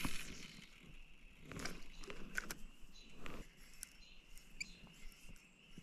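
Quiet lakeside stillness: scattered faint clicks and taps from a fishing rod and reel being handled in a canoe, with a few faint bird chirps.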